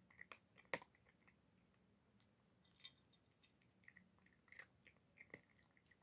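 Domestic cat crunching dry kibble from a bowl: faint, irregular crunches and clicks, the loudest about a second in.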